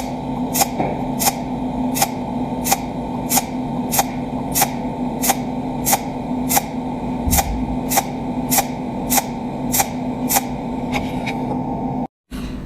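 Cold welding machine at work: a steady electrical hum with sharp, evenly spaced ticks about one and a half times a second, cut off briefly near the end.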